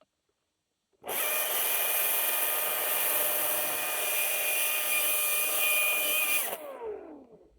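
Husqvarna 540i XP battery chainsaw triggered about a second in and run at a steady speed with a high whine. Near the end it is released and the motor winds down with a falling whine.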